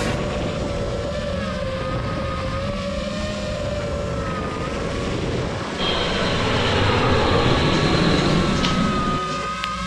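FPV racing quadcopter's brushless motors and propellers whining in flight, the pitch wavering as the throttle changes. About two-thirds of the way through, a louder rushing sound joins in for a few seconds, then drops away.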